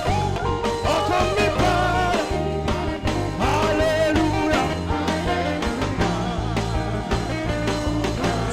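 Live gospel band music: a saxophone plays a wavering lead melody over sustained bass notes and a steady band accompaniment.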